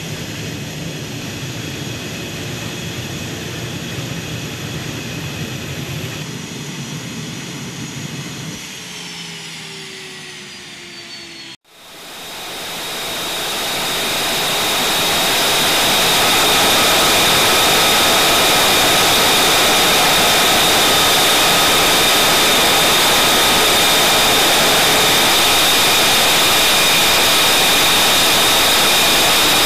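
An F/A-18 Hornet's jet engines running, with their whine sliding down in pitch about nine seconds in. After an abrupt break, an F-35B Lightning II's jet engine runs steadily and louder, with a high whine, swelling up over a few seconds.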